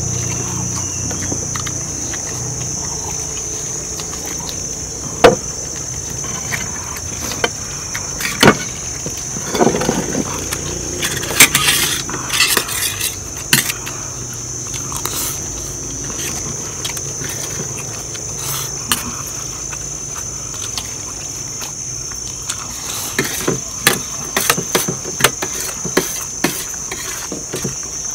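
Metal spoons clinking and scraping against plates in scattered clusters of sharp clicks, while eating from plates of rice, over a steady high shrill of insects.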